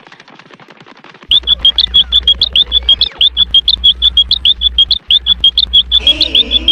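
A cartoon sound effect played very loud. After a second of faint rapid ticking, a fast, even run of short, high chirps sets in at about nine a second, like a cricket or frog. A lower wavering tone joins near the end.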